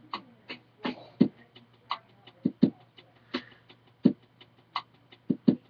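A string of short, sharp clicks and taps at irregular spacing, a dozen or more, some duller and heavier than others, over a low steady hum.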